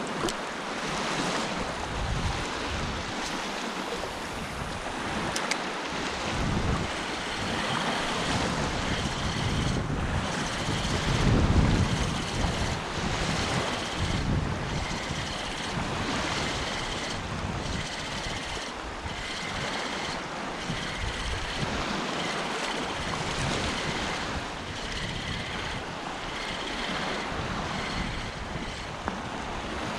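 Wind buffeting the microphone over small sea waves lapping in shallow water, with a stronger gust about eleven seconds in.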